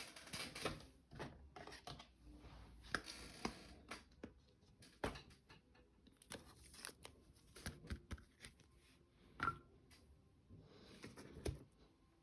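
Faint rustling and scattered light clicks and ticks of trading cards and their plastic sleeves or holders being handled.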